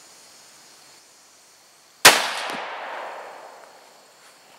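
A single rifle shot from a Remington 700 in .22-250 Remington, about two seconds in: a sharp crack whose echo fades away over the next two seconds.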